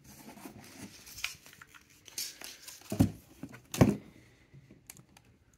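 A wooden-stocked rifle being handled on a cardboard box: rustling and scraping against the cardboard and a paper tag, then two knocks a little under a second apart about three seconds in as the carbine is turned over.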